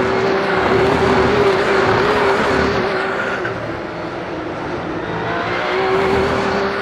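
Racing car engines running hard as a group of race cars passes through a corner, the note easing off about halfway through and swelling again near the end as more cars come by.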